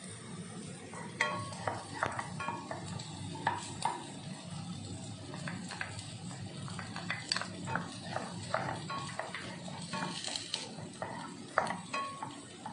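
Wooden spatula stirring and scraping chopped garlic frying in oil in a frying pan, with irregular knocks and taps against the pan and a small glass bowl, some ringing briefly.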